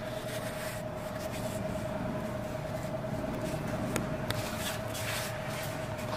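Steady room noise with a constant tone, and a few faint rustles and clicks.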